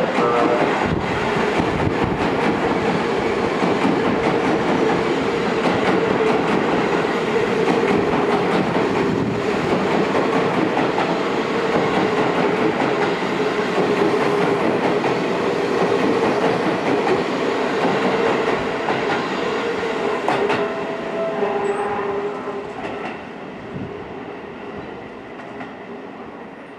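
Seibu 20000 series electric train running along the platform: a steady motor whine over the clatter of wheels on the rail joints. The sound fades over the last few seconds.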